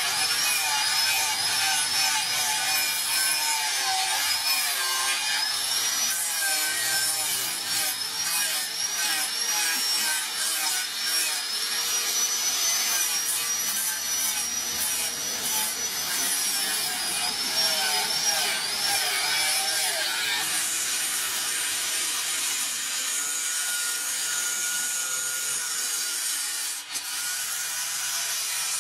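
Angle grinder grinding a knife blank cut from a brake disc, running continuously with a high whine that wavers as the disc bears on the metal. About two-thirds through, the whine drops away and the grinding goes on with a different tone.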